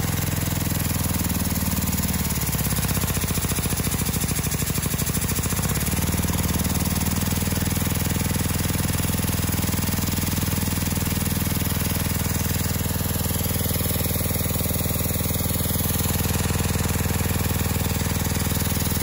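Lego single-cylinder vacuum engine running fast on suction from a vacuum cleaner hose: a rapid, even clatter over the vacuum cleaner's steady drone. The low drone shifts for a few seconds about a second in, then holds steady.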